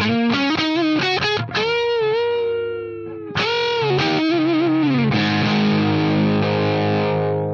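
Gibson Flying V electric guitar played straight into a Scarlett Scout tube amp head with 6L6 power tubes, heard through a miked 4x12 cabinet with Vintage 30 speakers. It plays overdriven lead lines of quick notes with wide vibrato and string bends. About five seconds in a chord slides down and is left ringing.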